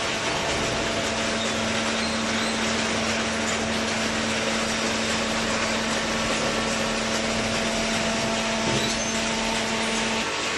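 Cardboard compactor baler running: a steady machine hum over a constant mechanical hiss, the hum coming in about half a second in and cutting off shortly before the end.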